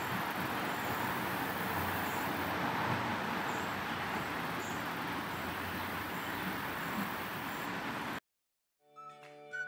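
Steady outdoor background noise with faint high chirps every second or so. It cuts off abruptly about eight seconds in, and music with a whistle-like melody begins just before the end.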